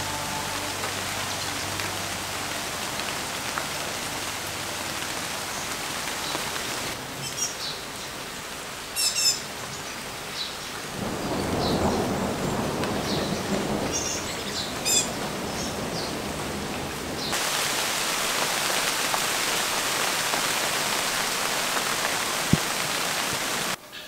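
Steady rain with a low rumble of thunder about halfway through. A few bird chirps sound over the rain. The rain grows heavier about two-thirds of the way in.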